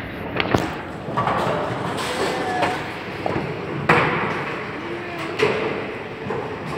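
Bowling alley sounds: three sharp knocks of balls and pins on the lanes, the loudest about four seconds in, over a background of voices in a large, echoing hall.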